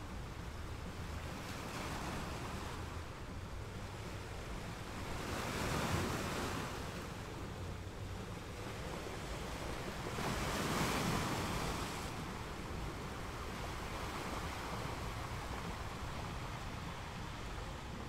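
Small waves breaking and washing up a sandy beach, a steady hiss of surf with two waves swelling louder, about six and eleven seconds in, over a low steady rumble.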